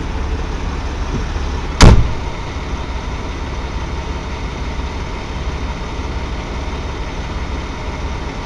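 Heavy truck engine idling steadily, with one sharp bang about two seconds in.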